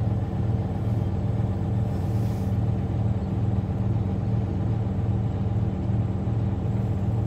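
A commercial truck's diesel engine running steadily, heard from inside the cab, held at a raised idle while the air compressor builds brake air pressure.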